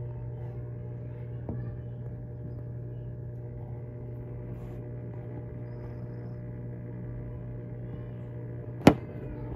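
Steady low hum of an aquarium pump running, with a faint click about a second and a half in and one sharp click near the end.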